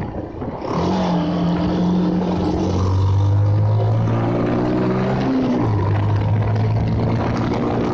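Bajaj Pulsar single-cylinder motorcycle engine running under way, its steady note shifting in pitch about three seconds in and again about five and a half seconds in, over wind and road noise.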